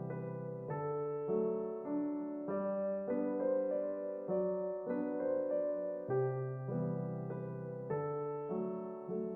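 Background music: a gentle piano melody with notes changing about twice a second.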